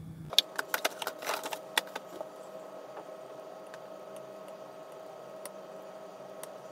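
Plastic model-kit sprues clattering as they are picked up and handled, heard sped up four times: a quick run of sharp clicks in the first two seconds, then only faint scattered ticks over a steady hum.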